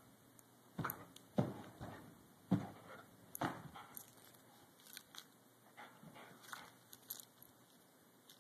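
A dog stomping her paws on a shaggy carpeted rug as she pounces on a laser pointer dot. The thumps come at an irregular pace, thick in the first half and thinning out to fainter ones later.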